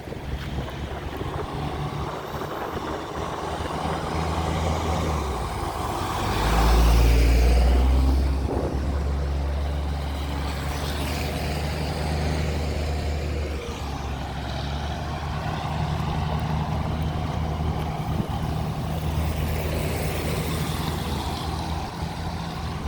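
A motor vehicle's engine runs steadily with a low hum, over a steady rushing noise, and grows loudest for a couple of seconds about seven seconds in.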